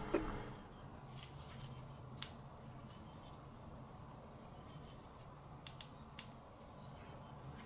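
Quiet room tone with a few faint, sharp clicks at irregular intervals.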